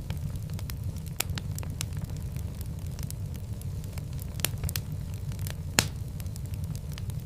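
Fireplace fire crackling: irregular sharp pops and snaps over a steady low rumble of the flames, with one louder pop near the end.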